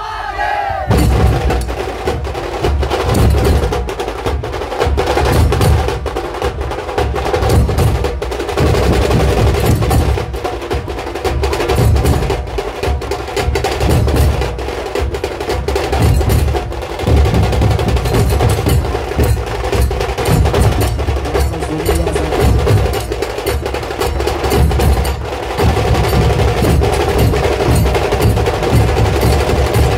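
Loud percussion-driven music: rapid drum strokes and rolls over a heavy, pulsing bass beat, with a held tone running underneath.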